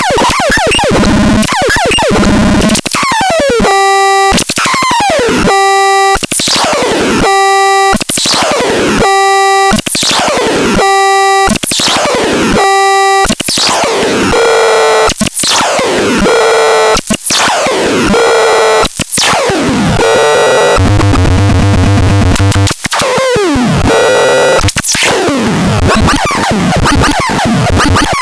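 Loud synthesized electronic sound effects from a KASMAX: repeated falling sweeps, a run of steady beeping tones about every second and a half, each followed by a falling sweep, then fast pulsing zaps and a low buzz about 21 seconds in.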